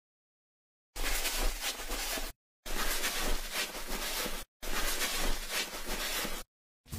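Bristle brush sweeping grit: three strokes of about two seconds each, separated by dead silence.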